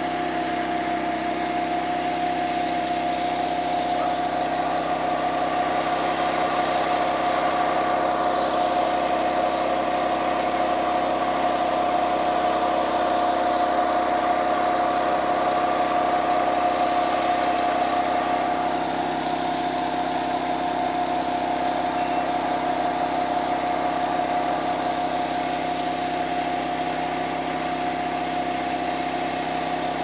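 Engine-driven fire pump running at a steady speed, with a steady whine over the engine hum. It swells slightly through the middle.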